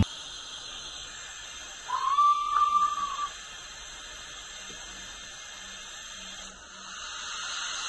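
Sound-fitted model steam locomotive standing with a steady steam hiss, giving one whistle blast about two seconds in that rises briefly, then holds for over a second. Near the end a louder steam hiss builds as the engine gets ready to move off.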